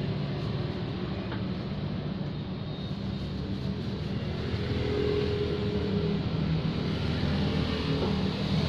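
Steady low roar of LPG stove burners running under a martabak pan, with a low hum beneath it.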